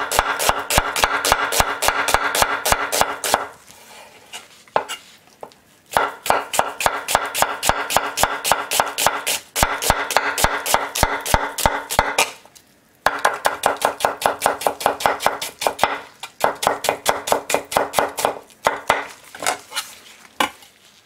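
Chef's knife slicing an onion on an end-grain wooden cutting board, each stroke a crisp tap of the blade on the wood. The strokes come fast and even, about five a second, in three runs with short pauses between. A few slower strokes follow near the end.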